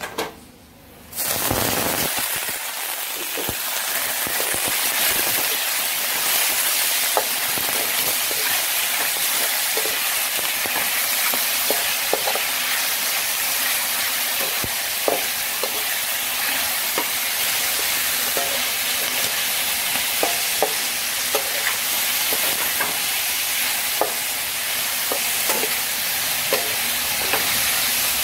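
Chicken livers stir-frying in a hot oiled metal wok: a loud, steady sizzle that starts suddenly about a second in as they go into the pan, with the metal spatula scraping and clicking against the wok now and then.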